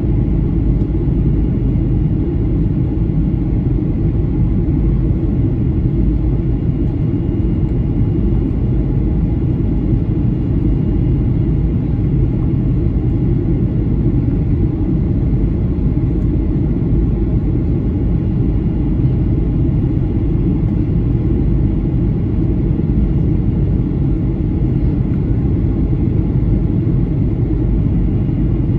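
Steady low rumble of engine and airflow noise inside the cabin of a Boeing 737-800 on approach with flaps extended, with a faint steady whine above it.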